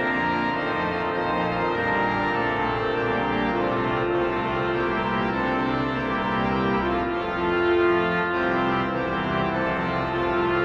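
Viscount Canticus 50 digital church organ playing sustained chords, the harmony moving to a new chord every second or two.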